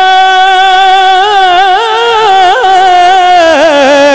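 A solo male voice sings a naat through a microphone, holding one long, high note. The note is decorated with melismatic turns in the middle and steps down in pitch near the end.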